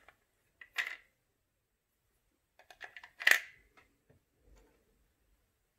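Clicks and rattles of a hard plastic tool housing and its batteries being handled while the batteries are fitted: a short clatter about a second in, then a louder run of clicks around three seconds in.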